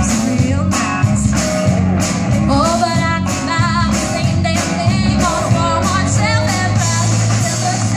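Live rock band: a woman singing lead through a microphone over electric guitar, bass guitar and drums.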